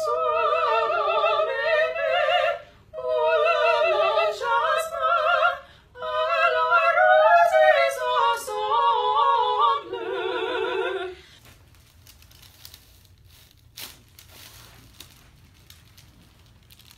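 Operatic singing with a strong vibrato, in several sustained phrases with short breaks between them. The singing cuts off about eleven seconds in, leaving faint room sound with a few small clicks.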